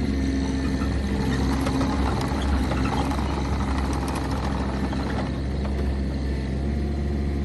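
Bobcat 323 mini excavator's Kubota diesel engine running steadily, with a busier clatter that eases about five seconds in.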